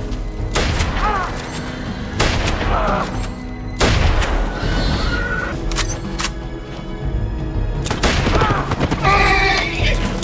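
A film soundtrack of about five gunshots from a long gun, fired every one and a half to two seconds over a dramatic music score, with short high cries between the shots.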